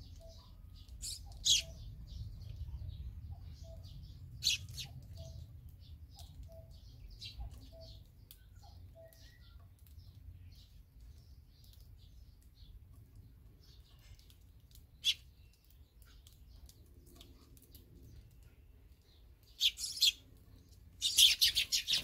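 Barn swallows chirping at their mud nest: sharp single chirps now and then, then a quick burst of rapid high twittering near the end.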